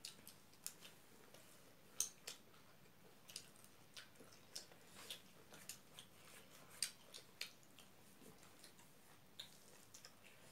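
Close-up eating sounds: scattered short wet clicks and smacks of chewing, about one or two a second, as two people eat rice by hand.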